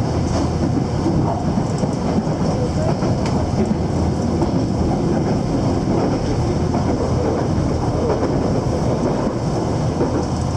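Train running with a steady rumble and rattle.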